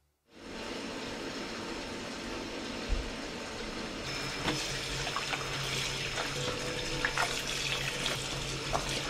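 Tap water running into a washbasin filling with water, with clothes being hand-washed in it: sloshing and splashing from about four seconds in. A single knock about three seconds in.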